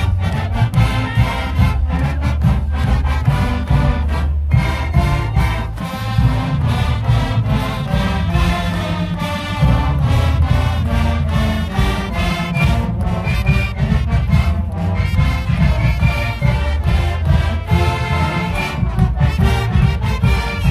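Marching band playing a brass tune over a driving drumline and bass drums, the horns holding full chords with many quick drum strokes throughout.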